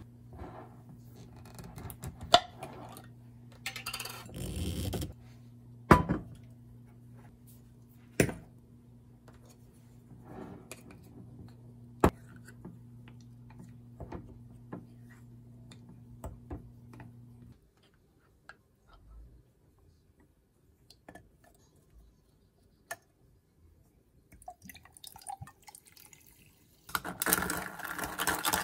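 Ice, a spoon and glassware clinking on a counter: a few separate sharp clinks and a short pour, over a low steady hum that stops partway through. Near the end, ice rattles fast in a glass as the drink is stirred with a straw.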